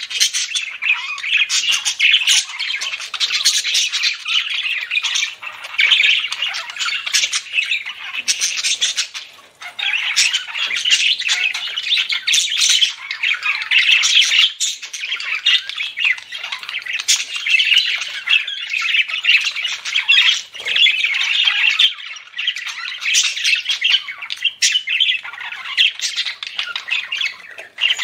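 Budgerigars chattering: a continuous run of warbles, chirps and squawks, with a couple of brief pauses.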